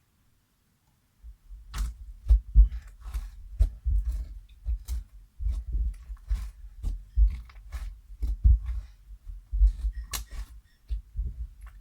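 Slime with beads mixed in being squeezed and poked by hand: irregular wet squelches and sharp little pops and clicks, beginning about a second in.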